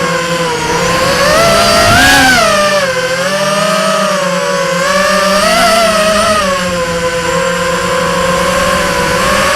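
Multirotor drone's electric motors and propellers whining steadily. The pitch rises and falls every second or two as the throttle changes.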